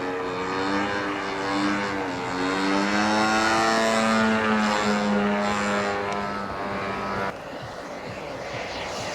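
Radio-controlled model airplane's propeller engine in flight, its pitch rising and falling as it manoeuvres. About seven seconds in, the engine sound cuts off abruptly, leaving a steadier rushing noise.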